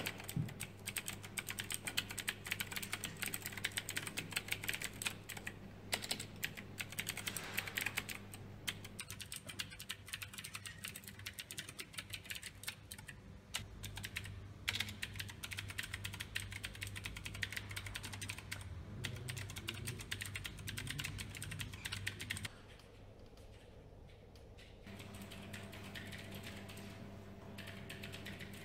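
Fast, continuous typing on a computer keyboard: a dense stream of key clicks that thins out briefly about three quarters of the way through. A steady low hum runs underneath.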